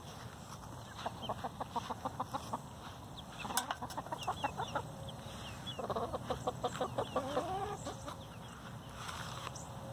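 Backyard hens clucking in three runs of quick, rattling clucks while they peck at feed, with a few short high chirps in between.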